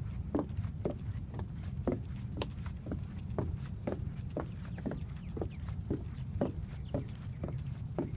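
Footsteps on a wooden boardwalk, about two steps a second, with a steady high insect buzz setting in about a second in.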